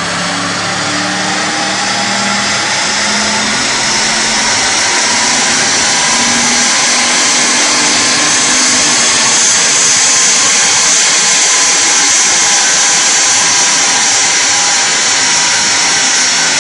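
Audi RS6's twin-turbo V8 running hard on a chassis dynamometer, a dense, loud rush of engine, tyre and roller noise that grows louder over the first several seconds and then holds.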